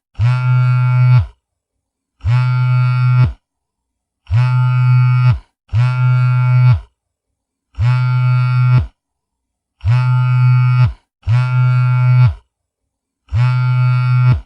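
Mobile phone vibrating: a loud, low buzz about a second long, repeated eight times with short silent gaps between. Some buzzes come singly and some in quick pairs.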